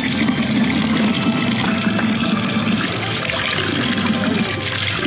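Water pouring steadily from the curved metal spout of a public drinking fountain and splashing below.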